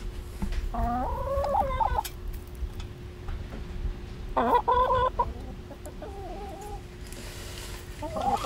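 Hens clucking while feeding at the trough: a drawn-out call about a second in, then a run of quick clucks a few seconds later and a softer short call just after.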